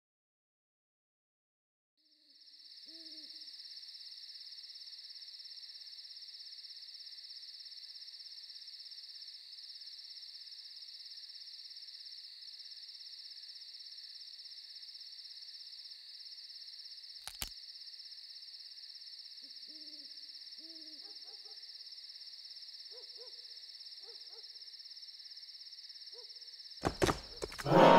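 Night ambience: a steady high-pitched insect chorus, crickets, with a few faint low owl hoots, a pair a few seconds in and several more in the second half. A couple of sudden knocks near the end.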